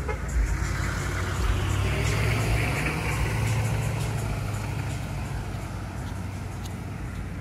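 Aiga bus driving past on a wet road. Its engine rumble and tyre hiss grow louder about two seconds in, then slowly fade as it pulls away.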